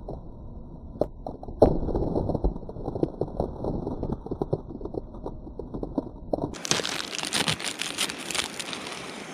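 Plastic wrapper of an instant ramen packet crinkling and tearing as it is opened by hand, with many sharp crackles; the sharpest crack comes about a second and a half in.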